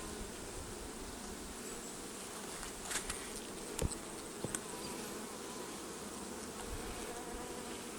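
Honeybees buzzing in a steady hum over an open hive, a colony the beekeeper suspects is queenless. A few light clicks come about three to four and a half seconds in.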